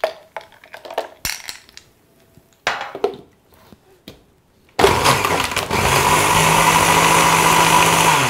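A few ice cubes knock and clink into the stainless-steel jar of an electric mixer grinder and the lid is fitted. About five seconds in, the mixer grinder starts abruptly and runs steadily with a high whine, blending the ice with tender coconut and milk into a milkshake.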